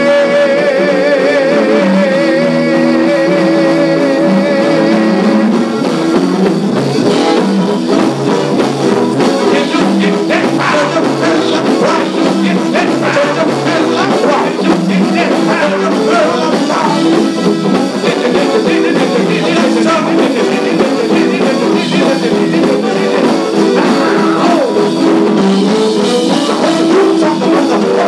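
Live gospel band playing loud: electric guitar, drum kit and keyboard behind singing. A long note with wide vibrato is held for the first five seconds or so.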